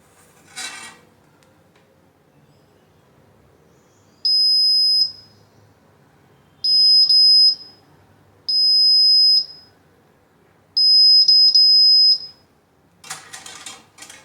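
Arduino social-distancing alarm's buzzer beeping four times, each a loud high-pitched tone of about a second, the last one stuttering. The beeps signal that something has come too close. A short rustle comes near the start and a longer one near the end.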